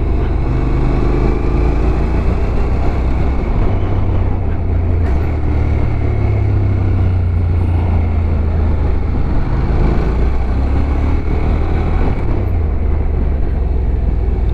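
Motorcycle engine running steadily under way, a constant low drone with rushing wind and road noise over it.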